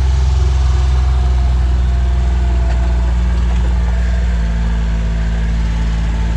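A motor vehicle's engine idling with a steady low hum; its tone shifts slightly about four seconds in.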